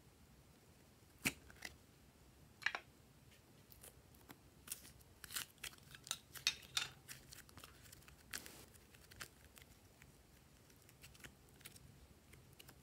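Scattered sharp clicks and short sticky crackles of a plastic ice-pop mold being handled and squeezed while a piece of clay is peeled out of it. The clicks come thickest a few seconds in.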